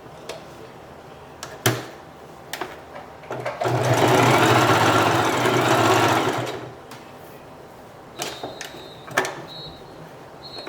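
Sewing machine running for about three seconds in the middle, stitching a hair weft onto a wig cap, with scattered clicks before and after the run.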